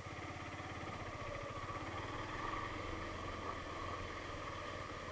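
Motorcycle engine running steadily with an even, fast pulse, heard close up from a camera mounted on the bike.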